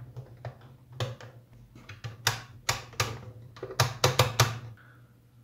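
A bench power supply's rotary voltage-selector switch clicking as its knob is fitted and turned through its positions: a series of sharp, irregular clicks, coming in quick runs in the middle.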